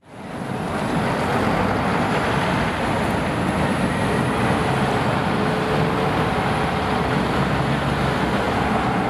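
Airport fire trucks' diesel engines running as they move across the apron: a steady engine rumble with a faint whine.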